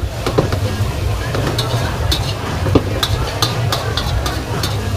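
Metal ladle and spatula clinking and scraping against a steel wok as vegetables are stir-fried, with frying sizzle underneath. A steady low hum runs beneath it all.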